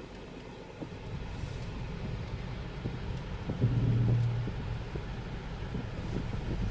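Street traffic: vehicle engines running in a low rumble, with one engine coming up louder for about a second midway.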